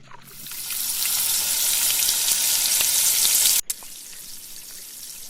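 Battered chicken deep-frying in hot oil: a loud sizzle that builds over the first second, then cuts abruptly about three and a half seconds in to a quieter sizzle.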